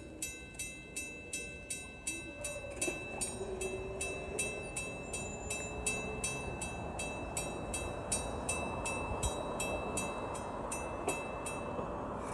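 Railroad crossing bell ringing steadily at about three strikes a second as the crossing gates come down. From a few seconds in, the rumble of an approaching train grows louder underneath it.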